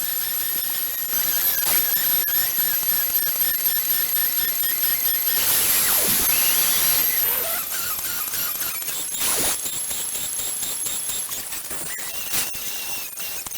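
Stepper motors of a DIY CNC machine whining at shifting pitches as the axes move, with a stretch of rushing noise about halfway through and a few sharp clicks.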